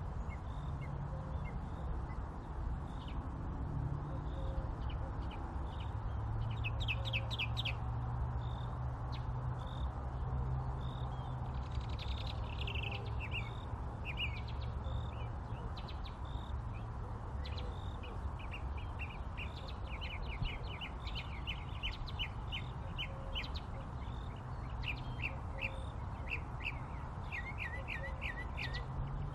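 Small birds chirping in quick runs of short notes, more and more often after the first few seconds, with a faint single note repeating about once a second. A steady low rumble runs underneath.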